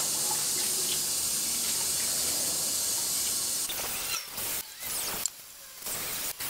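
Tap water running steadily into a stainless steel sink. From about four seconds in the stream breaks up and splashes unevenly as drill-mounted parts are wet-sanded under it.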